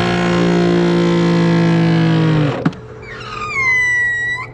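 Giraffe Tools Grandfalls PRO electric pressure washer switched on: its motor and pump start at once with a loud, steady hum, then shut off with a click after about two and a half seconds. Soon after, a high whine starts, dips in pitch and then holds steady until it cuts off; this is a weird noise whose cause the owner doesn't know and guesses may be normal.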